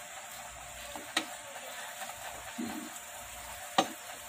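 Chicken tinola broth simmering in a stainless steel pot while a plastic spatula stirs it, knocking sharply against the pot twice, about a second in and again near the end.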